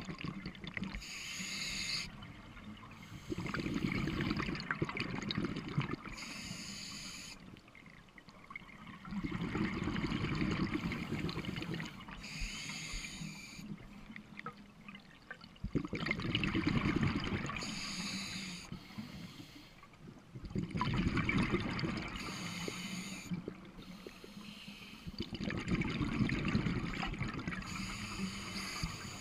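Scuba diver breathing through a regulator underwater: a short hissing inhale followed by a longer low bubbling exhale, repeating about every five to six seconds, about five breaths in all.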